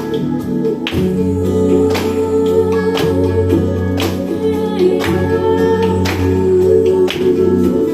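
A song with singing over guitar accompaniment, with regular beats about once a second; a low bass part comes in about a second in.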